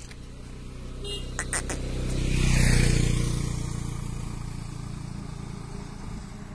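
A motor vehicle drives past on the road, its engine and tyre noise swelling to a peak about three seconds in and then fading away. A few short clicks come just before the peak.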